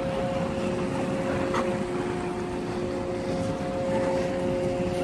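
Distant harbour hum from ships and the container terminal across the river: a few steady droning tones, one more joining about half a second in, over a low rumble of wind on the microphone.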